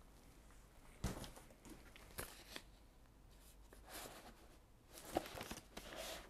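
Faint rustling and scraping of a cardboard package being handled, with a few soft knocks, the first about a second in.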